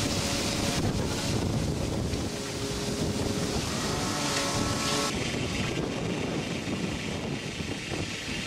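Steady noise aboard a fishing boat: the engine running under wind and sea wash, with water spraying from a deck hose. About five seconds in, the hiss of the spray cuts off abruptly.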